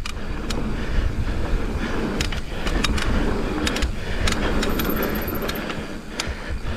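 Mountain bike rolling fast down a dirt trail: a steady rumble of wind and tyre noise, with frequent sharp clicks and rattles from the bike.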